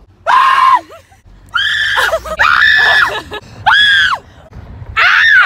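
Young women shrieking playfully: about five loud, high-pitched screams, each rising and falling in pitch and lasting half a second to a second.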